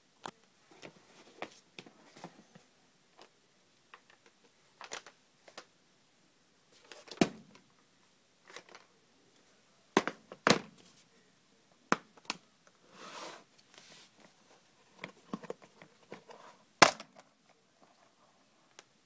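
Hard plastic case of a Matchbox Auto Center pop-up playset being handled and opened: scattered plastic clicks and knocks, a few sharper taps, and a brief scrape a little past the middle.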